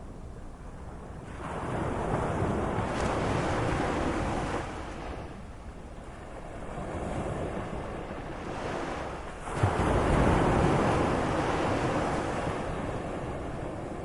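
Sea waves surging and washing in, swelling and ebbing three times. The last surge is the loudest, breaking with a sudden low crash about two-thirds of the way through and then slowly subsiding.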